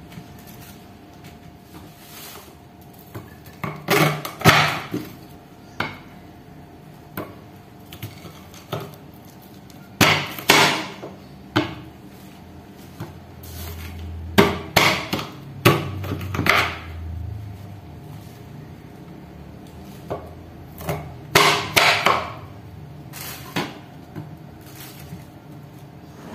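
Large kitchen knife chopping through corn cobs onto a wooden cutting board: loud knocks in clusters of a few strokes, several seconds apart.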